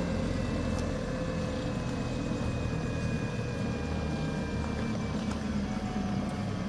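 Engine running steadily: a low rumble with a faint whine that drifts slowly lower.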